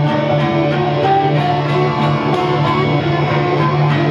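Acoustic and electric guitar playing together: a strummed rhythm with picked notes over a steady low note, without singing.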